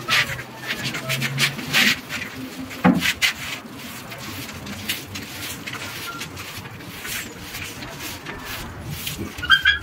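Stiff-bristled broom sweeping a bare concrete floor: a run of irregular scratchy swishes, one per stroke.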